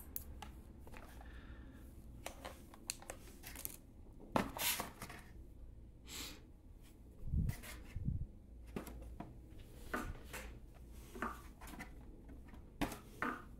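Handling noise on a desk: scattered light clicks and rustles as multimeter test leads and their plastic probes are moved and a cardboard box is shifted, with two soft low thumps about seven and eight seconds in.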